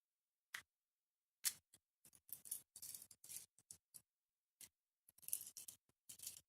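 Clear slime being squished and poked by hand, giving faint, sharp crackling clicks and pops in two dense clusters with a few single clicks between.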